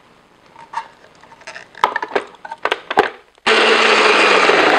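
A few knocks and clatters as a countertop blender jar is handled and seated on its base, then about three and a half seconds in the blender motor starts abruptly and runs loud and steady.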